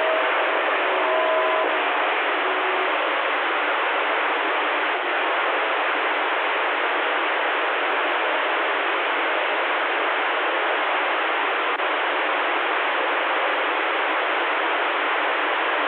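Steady static hiss from a CB radio's speaker, level and unbroken, with a weak long-distance signal buried in the noise and a few faint tones in the first two seconds.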